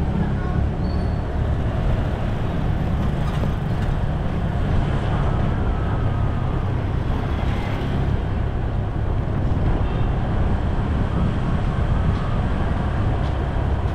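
Steady low rumble of a vehicle in motion, engine and road noise without a break.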